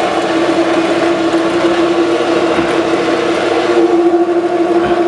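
WEN 4214 drill press running with a steady motor hum while its variable-speed handle is turned, slowing the spindle from about 2050 to about 1400 rpm. The higher hiss eases off about four seconds in.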